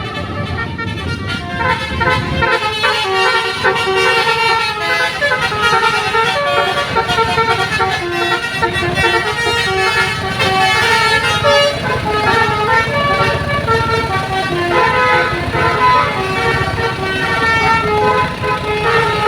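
Indonesian bus 'telolet basuri' multi-tone air horn playing a fast tune of short stepped notes, over the low rumble of the bus.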